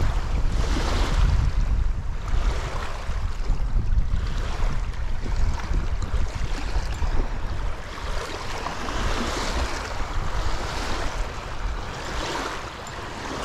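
Wind buffeting the microphone in a heavy, uneven low rumble over a rushing of wind and lake waves that swells and fades every second or two. It eases somewhat in the second half.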